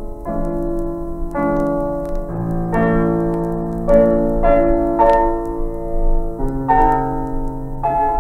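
Piano music playing slow, held chords that change about once a second.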